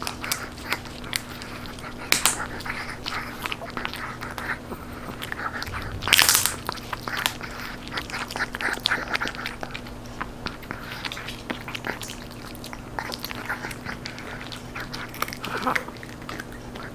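A Chihuahua gnawing and crunching a crispy dried duck knee-cartilage treat, with irregular crunches and snaps. Two louder crunches come about two and six seconds in, over a faint steady low hum.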